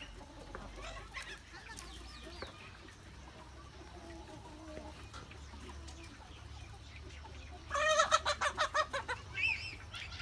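Chickens clucking at a low level, then one bird lets out a loud, rapid cackle about three-quarters of the way through, followed by a few shorter calls.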